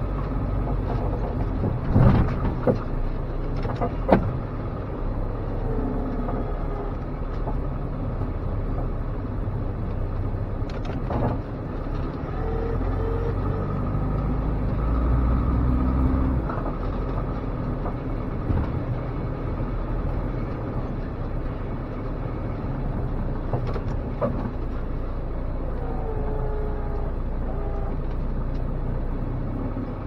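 1987 Dodge Raider's engine running under load, heard from inside the cab while the truck plows snow, with a few sharp clunks and knocks. The engine grows louder and heavier for a couple of seconds about halfway through.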